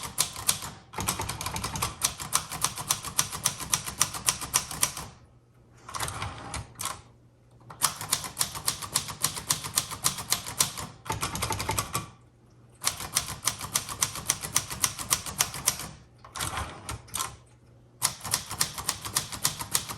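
Keys of a 1960s Singer Scholastic T4 portable typewriter, made by Royal, typed in quick runs of sharp clacks, with several brief pauses between runs.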